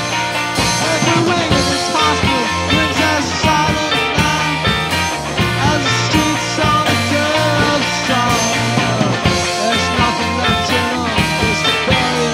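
A garage-rock band playing a song in a live demo recording, with electric guitar and drums.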